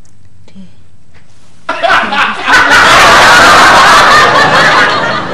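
Sitcom laugh track: a crowd of audience laughter breaks out a little under two seconds in, stays loud and dies away near the end.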